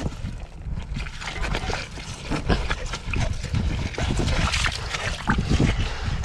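A small pick and gloved hands digging through wet gravel, shell grit and mud: irregular crunching, scraping and squelching.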